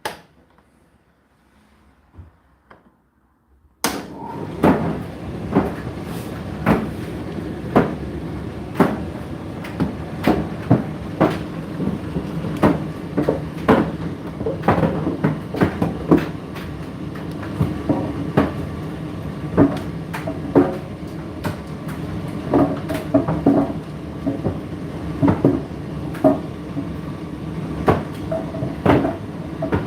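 Indesit IDC8T3 condenser tumble dryer: a single click, then after about four seconds the drum starts turning with a steady motor and fan hum. Over the hum, the tumbling load knocks against the drum about once or twice a second.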